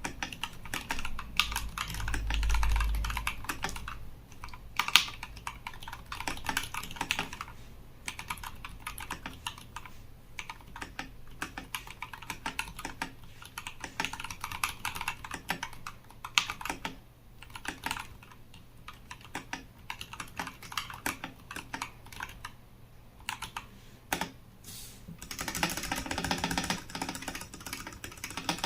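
Typing on a Nextime 75 mechanical keyboard fitted with lubed Kailh Box Burnt Orange switches and PBT keycaps: a steady, irregular run of keystrokes, with a denser flurry near the end.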